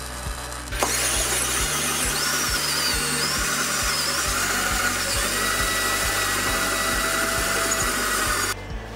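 Power drill spinning the threaded lead screw of a homemade steel vise, driving the jaw along the bed. The motor starts a little under a second in, runs steadily with a slightly wavering whine, and stops just before the end.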